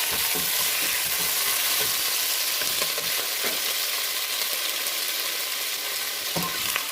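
Chopped tomato sizzling in hot oil with sautéing garlic and onion in a pan: a steady hiss, a little stronger at first, with a few faint taps from stirring.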